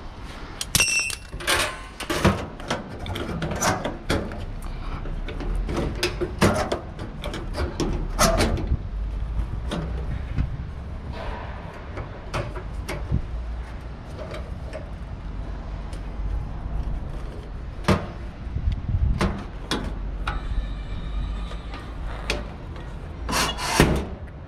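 Clanks, rattles and knocks of metal ratchet-strap buckles being handled and dropped into a trailer's metal side storage box, with the box lid being moved and shut. A low steady rumble runs underneath.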